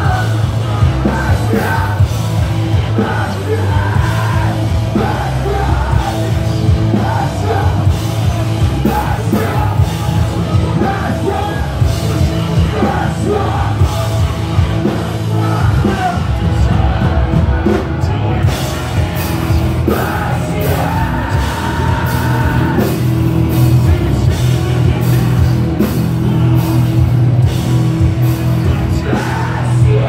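A metalcore band playing loud and live, with bass, guitars and pounding drums under shouted vocals.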